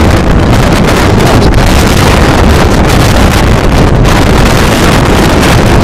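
Strong blizzard wind blasting straight across the microphone: a loud, unbroken rumble and hiss with constant buffeting.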